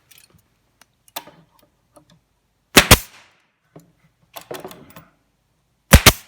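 Staple gun firing twice, about three seconds apart, each shot a sharp double crack as staples are driven into a melamine cabinet joint. Softer knocks and rubbing in between as the panels are handled.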